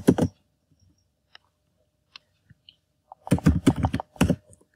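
Typing on a computer keyboard: a couple of keystrokes at the start, a pause with a few faint clicks, then a quick run of keystrokes near the end.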